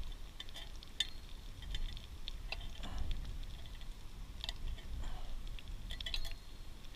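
Scattered light metallic clicks and clinks from utensils and cookware being handled at a small backpacking stove, a few with a short ring, over a low wind rumble on the microphone.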